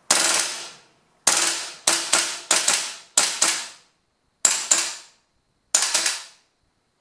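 WE M4 RIS gas blowback airsoft rifle dry-firing on gas in semi-auto. About a dozen loud shots, each bolt cycle with a short ring-out, come as singles, pairs and a quick run of four instead of one shot per trigger pull. The doubling is the semi-auto-to-full-auto fault, caused by wear on the hammer, trigger and disconnector (sear) hooks.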